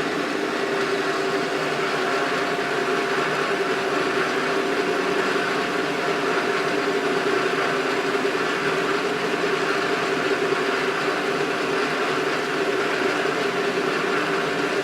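Creworks 8x16 mini metal lathe running steadily in gear: the motor and gear train make a constant hum and whir that holds even throughout.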